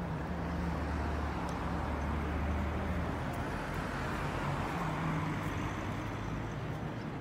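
Steady road traffic noise with a vehicle engine's low hum, strongest in the first few seconds.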